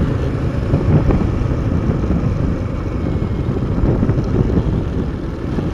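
Motorcycle riding on a rough, broken road: the engine running under wind noise on the microphone, with small irregular jolts.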